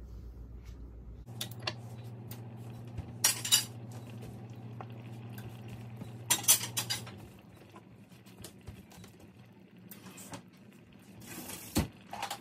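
Kitchen utensils and cookware clattering: short clusters of sharp clinks and knocks about three seconds in, about six seconds in and again near the end, over a low steady hum that fades about seven seconds in.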